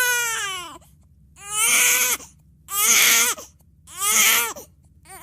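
Baby crying in loud wails about a second apart, each falling in pitch, with a short last cry near the end.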